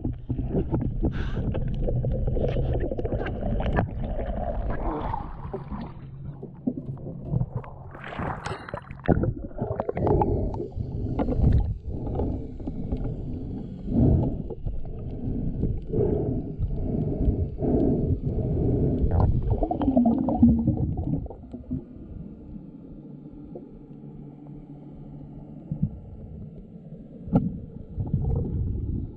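Muffled underwater noise picked up by an action camera in its waterproof housing while snorkeling: irregular sloshing of water with many short knocks, quieter for a few seconds near the end.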